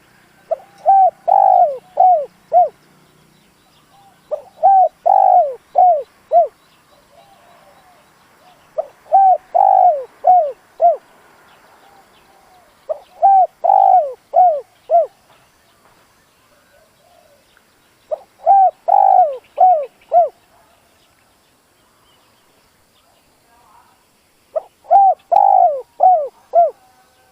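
Spotted dove, a decoy bird, singing its cooing song: six phrases of five or six short coos each, a few seconds apart.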